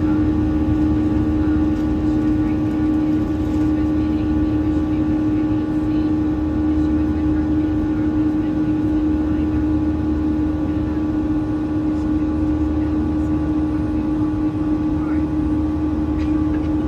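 Airliner cabin noise during the climb after takeoff: jet engines and airflow make a steady drone with a strong constant hum over a low rumble.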